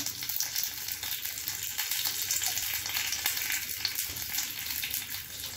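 Mustard seeds and curry leaves sizzling in hot oil in a stainless steel pan, a steady hiss full of tiny rapid pops. The seeds are spluttering, the sign that the oil is hot enough and the tempering is done.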